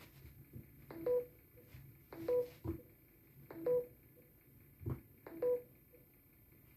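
Five short beeping tones, each with a click, spaced about a second or so apart.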